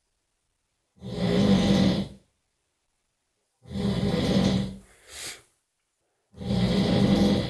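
A person snoring: three long buzzing snores about two and a half seconds apart, the second followed by a short extra snore, with complete silence between them.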